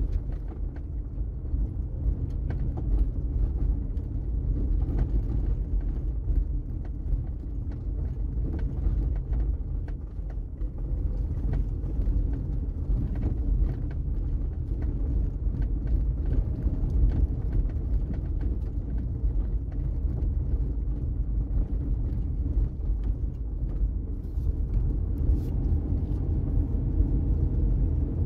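A car driving: a steady low rumble of road and engine noise.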